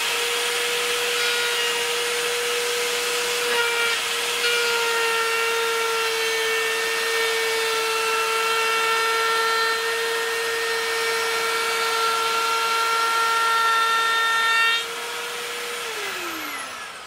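Parkside POF 1200 D3 router, table-mounted, running at high speed with a steady high whine as a board is fed across the bit, cutting wood. Near the end the loudness drops, and the router is switched off and winds down in a falling whine.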